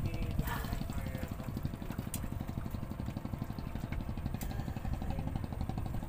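A small engine running steadily at an even idle, with a fast regular pulse. A couple of light clicks sound over it.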